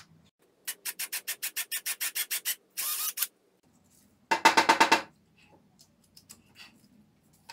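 Cordless drill ratcheting in a rapid run of clicks, about nine a second, then a shorter burst, typical of the clutch slipping as the bit binds in the wood. A louder stuttering rattle follows about four and a half seconds in, with a few faint clicks after.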